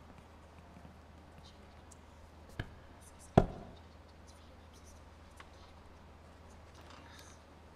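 Two sharp knocks on a hard surface less than a second apart, the second much louder with a brief ring after it, over a faint steady low hum.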